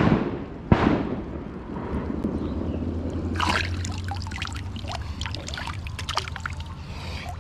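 Lake water splashing and dripping as a hooked largemouth bass is grabbed by hand and lifted out: two sharp splashes in the first second, then trickling and dripping.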